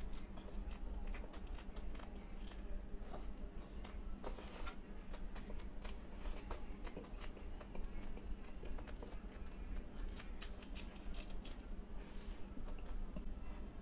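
Eating by hand: fingers pinching and mixing mashed rice on a stainless-steel plate and a mouth chewing, a steady run of small irregular clicks and soft squishy sounds.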